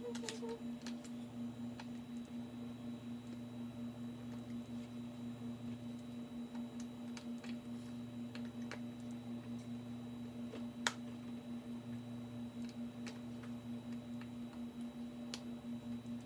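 Cooked chicken breast being pulled apart by hand, heard as faint soft handling sounds and scattered light ticks, with one sharper click about eleven seconds in. A steady low pulsing hum runs underneath.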